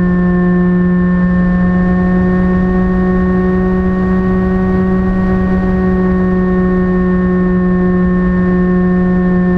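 The Phantom FX-61 flying wing's electric motor and pusher propeller running at a steady cruise throttle: a steady drone that rises slightly in pitch about halfway through, then eases back. Under it is a low rumble of wind on the onboard camera's microphone.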